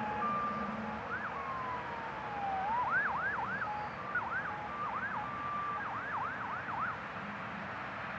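Emergency vehicle siren switching between a two-tone hi-lo, a slow falling wail and fast rising-and-falling yelps, stopping about seven seconds in, over a steady background noise.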